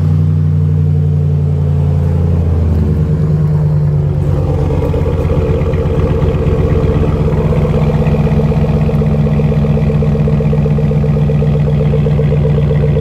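Pickup truck engine just after starting, running loud; its pitch drops about two and a half seconds in as it settles into a steady idle with a slight pulsing beat.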